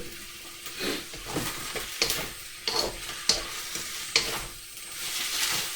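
Stir-fried noodles and vegetables sizzling in a pan, with several sharp clicks and knocks of kitchen utensils and containers being handled.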